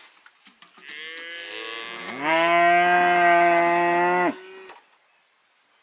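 Cow mooing: one long moo that begins faintly, swells and rises in pitch about two seconds in, holds steady, then stops abruptly.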